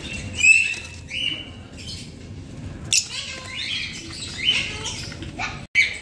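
Caged small parrots chirping and squawking in short, scattered calls, the loudest about half a second in.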